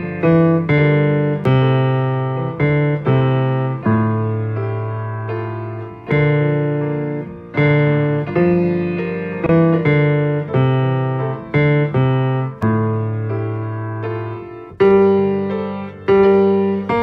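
Piano playing a choral part-learning track, the tenor line with its accompaniment: slow chords, each struck and left to fade before the next.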